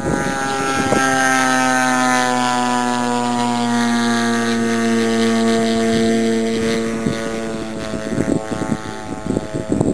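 Piston engine of a radio-controlled P-51 Mustang model flying past, a steady propeller drone whose pitch slides slowly down and fades after about seven seconds. Gusts of wind on the microphone near the end.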